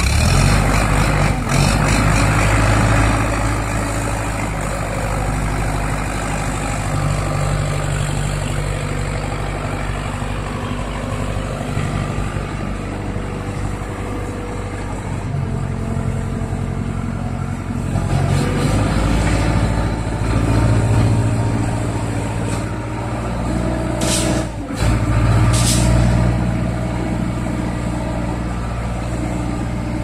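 Diesel engine of an ACE 14XW pick-and-carry crane running, its pitch rising and falling as the engine works while the crane moves and raises its boom with a load. Two short sharp hisses come about three-quarters of the way through.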